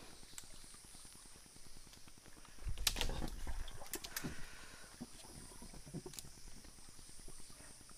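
Steady high insect drone over a shallow stream, with a burst of close knocks and a rumble about three seconds in as a bamboo pole and PVC water pipe are handled in the water, then a few single clicks.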